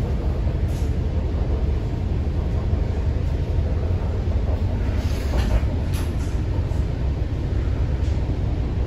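MTR Kwun Tong Line C-train heard from inside the passenger car while running between stations: a steady low rumble of wheels on track and running gear. A few faint brief high squeaks come about halfway through.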